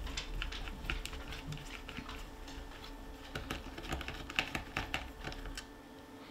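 Small, irregular clicks and taps of a screwdriver and fingers working on the metal receiver of an Umarex HDX 68 air shotgun as it is taken apart. The clicks come thickest around the middle and thin out near the end.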